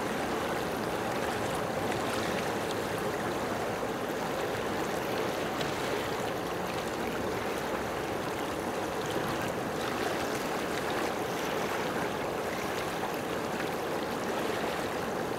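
Steady, even rush of flowing water, with no surges or breaks.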